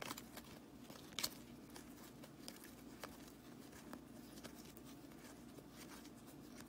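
Faint flicks and slides of hockey trading cards being thumbed through by hand, with scattered small ticks as cards pass from one hand to the other, over a low steady hum.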